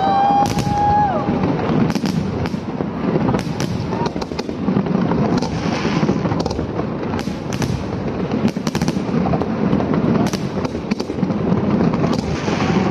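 Fireworks display: a rapid, continuous series of bangs and crackles from bursting shells, over a steady rumble, with a brief whistle at the start.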